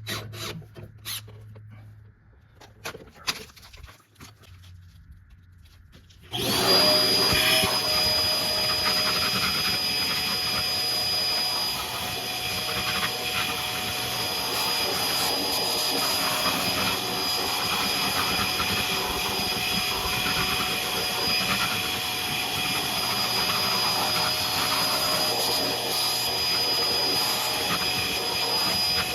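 A few clicks and knocks, then about six seconds in an electric drill starts and runs steadily with a high whine, boring holes into steel.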